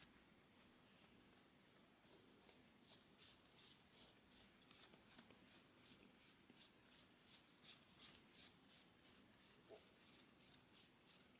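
Baseball trading cards being flipped through one at a time by hand, each card sliding off the stack with a faint, soft swipe, about three a second, starting about a second in.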